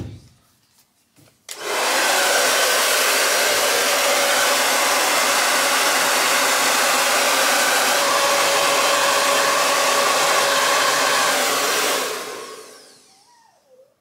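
Drybar handheld hair dryer running steadily on high, blowing on hair: a loud, even rush of air with a faint hum in it. It starts suddenly about a second and a half in and fades away near the end.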